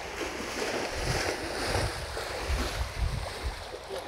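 Wind buffeting the microphone in low rumbling gusts through the middle, over a steady hiss of wind and river water on the shore.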